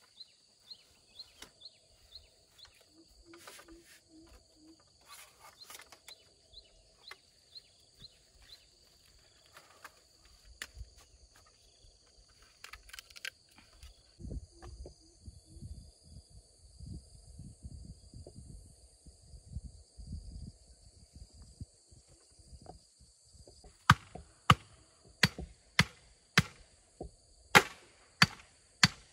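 Bamboo trellis poles being handled with small clicks and rustles over a steady high drone of insects, then, in the last five seconds, a quick run of loud, sharp knocks, about two a second: a machete striking the bamboo trellis.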